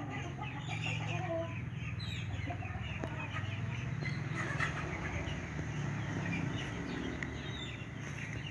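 Chickens clucking, many short calls one after another, over a steady low hum.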